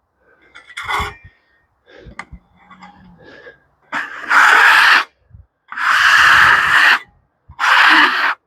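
Hand scraper pulled across the face of a freshly sawn white oak slab, clearing off sawdust: some light scratches and knocks, then three long, loud scraping strokes of about a second each.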